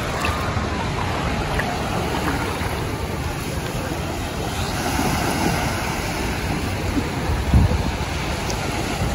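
Small waves washing onto a sandy beach, with wind buffeting the microphone in a low rumble that swells briefly near the end.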